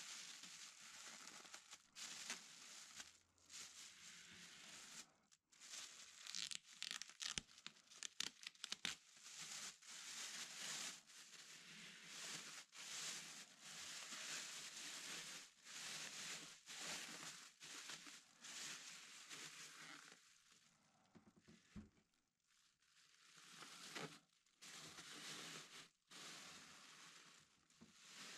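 Clear plastic packing bag crinkling and rustling as it is pulled up and off a resin printer's lid, in irregular bursts with a quick run of sharp crackles about six to nine seconds in, thinning out near the end.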